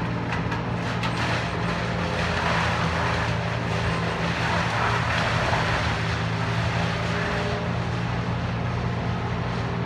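Diesel engine of a truck-mounted crane running steadily, with a rushing noise swelling over the middle few seconds and then easing.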